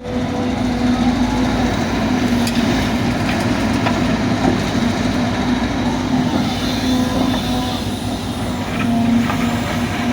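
Excavator's diesel engine running steadily under load with a constant hum, and a few short knocks and clanks from the machine at work.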